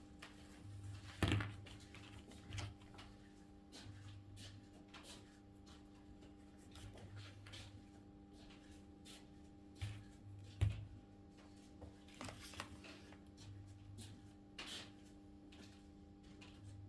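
Scattered light clicks and knocks of small objects being handled on a workbench, two of them louder, about a second in and near the middle, over a steady electrical hum.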